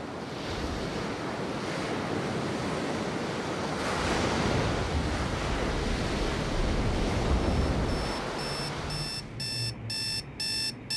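Ocean surf washing and swelling, then a digital alarm clock beeping. The beeps come in about seven and a half seconds in, then grow louder and quicker.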